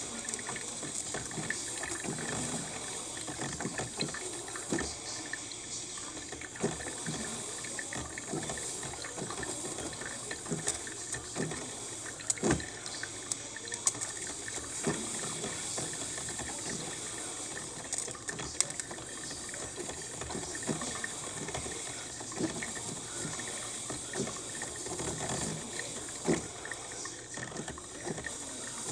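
Cuisinart coffee maker brewing: a steady hiss of hot water with irregular short pops and sputters as the water is pushed through.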